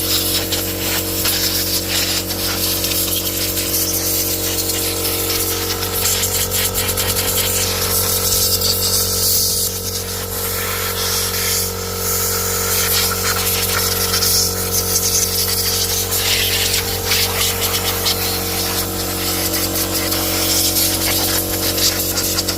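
Pressure washer running, its motor giving a steady hum under the hiss of the water spray as the engine is washed down.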